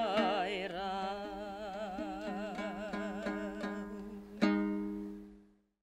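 A woman's voice holding a long final note with wide vibrato over a strummed dombyra, the two-stringed Kazakh lute. About four and a half seconds in comes one last strummed chord, which rings on and dies away.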